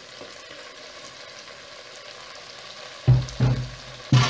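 Diced potatoes and vegetables cooking in an aluminium pot on a gas stove with a faint, steady sizzle, while chopped coriander is scraped off a wooden board into the pot. Three loud knocks come in quick succession near the end.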